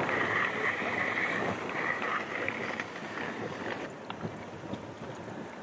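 Wind blowing across the microphone, a steady rushing hiss, with a high steady whine for the first two and a half seconds or so.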